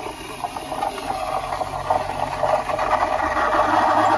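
De'Longhi espresso machine's steam wand, switched to its cappuccino setting, frothing milk in a stainless steel pitcher: steam hissing and crackling through the milk over a low steady hum, getting louder toward the end.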